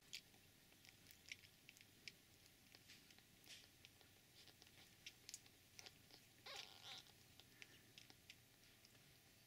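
Faint wet smacking clicks of newborn kittens suckling at their mother cat's nipples, irregular and many, with a brief louder rustle about two-thirds of the way through.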